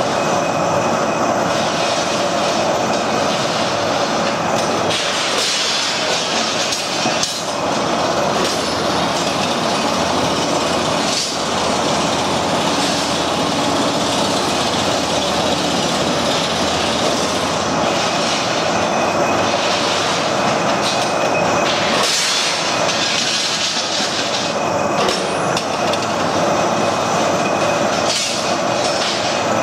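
Heavy rebar-processing machine running in a factory: a steady, loud mechanical clatter and hum, with a few sharper knocks now and then.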